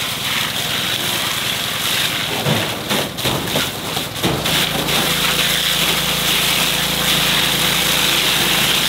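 A hose nozzle spraying a hard stream of water that hisses and spatters onto a small kids' Jeep, steady throughout. A few knocks sound around the middle, and a low steady hum comes in underneath a little after that.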